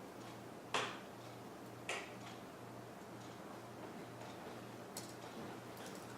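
Two sharp clicks about a second apart, then a fainter one, from small parts of an iPhone 3G being handled and pressed into place during reassembly. Under them runs a faint low hum that pulses about twice a second.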